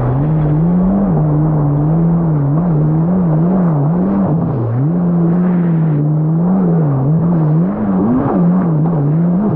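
Supercharged four-stroke engine of a Yamaha GP1800R SVHO jet ski running under way, its pitch rising and falling again and again as the throttle is worked, over the rush of wind and water.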